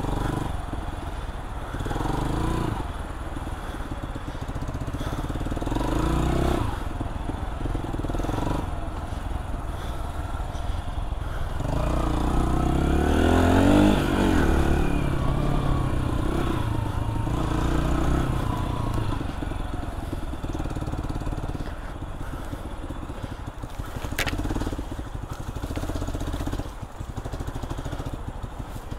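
AJS JSM 125cc dirt bike engine being ridden, revs rising and falling with the throttle and climbing to a peak about halfway through. A single sharp click near the end.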